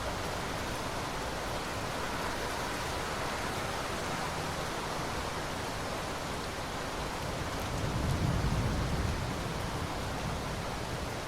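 Steady rain falling, an even hiss. About eight seconds in, a low rumble of distant thunder swells for a second or so and fades.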